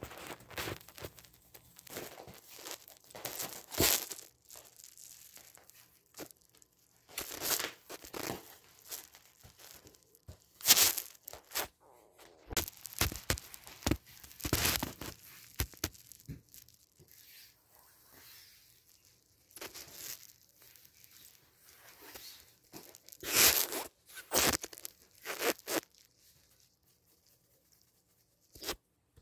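Irregular rustling and scraping on a fabric cover as a Siamese cat pounces and claws at a stick dragged across it, in uneven bursts, the loudest about eleven seconds in, growing sparse near the end.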